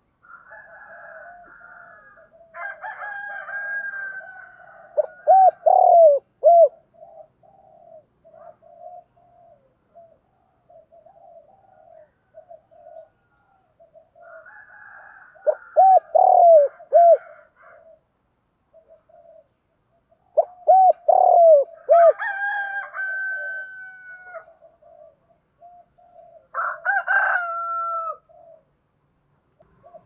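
Spotted dove cooing: soft low coos repeat throughout, and three times (about five, sixteen and twenty-one seconds in) it gives a loud phrase of a few rolling coos. Longer, higher held calls from another bird come near the start, around twenty-two seconds in and near the end.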